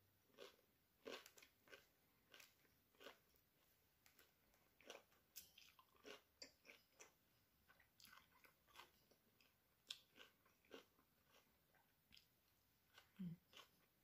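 A person chewing a mouthful of spicy grilled-pork salad with the mouth close to the microphone: faint, irregular wet clicks and small crunches, about one or two a second.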